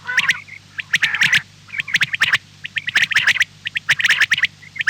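Birds giving harsh, squawking calls in quick clusters, about one burst a second.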